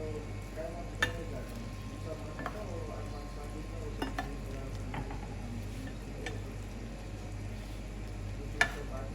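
Chicken pieces sizzling in gravy in a pan on a low flame, with a spoon scraping and knocking against the pan as the pieces are turned over. The sharpest knocks come about a second in and near the end.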